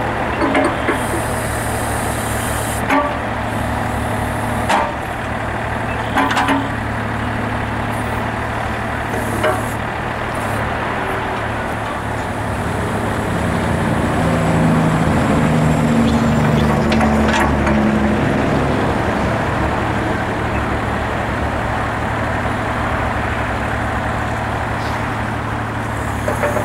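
Mini excavator's diesel engine running steadily as the boom, bucket and swing are worked, the engine note rising and labouring under hydraulic load for a few seconds in the middle. A few sharp metallic clanks from the arm and bucket linkage.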